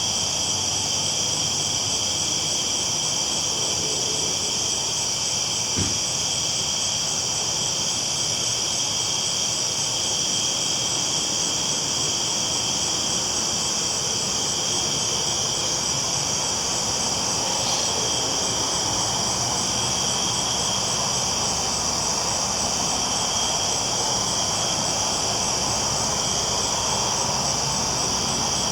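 Steady rolling noise of a train on the tracks, an even hiss with steady high tones over it and one brief click about six seconds in.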